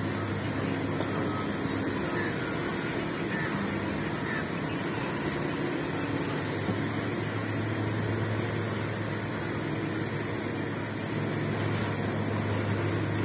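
Heavy earth-moving machine's engine running steadily, a low even hum with constant background noise.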